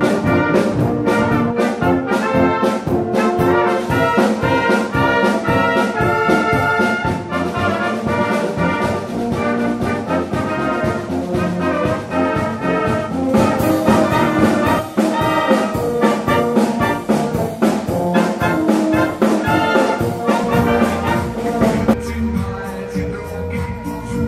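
Wind band playing a brass piece: clarinets, saxophones, horn and low brass together over a steady beat.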